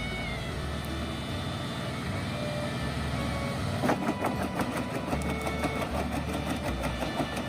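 Wood chipper running steadily while it chips logs into small pieces, with a sharp crack about four seconds in.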